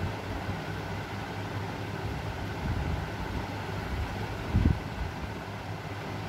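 Steady low hum and rumble of background noise, with one low thump a little over four and a half seconds in.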